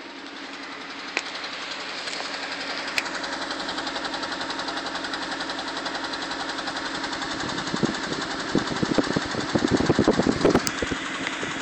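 1998 Honda Civic HX's 1.6-litre D16Y5 four-cylinder engine running with a steady pulse. From about eight seconds in it stumbles with irregular, louder thuds. This is a cylinder-one misfire (code P0301), which was traced to a sticking fuel injector.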